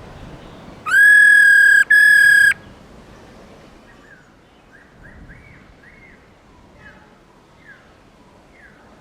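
A loud, steady whistle tone sounds twice in quick succession, the first about a second long and the second about half a second. Then come faint, short bird calls of black-throated laughingthrush, each note arched or falling, about one a second.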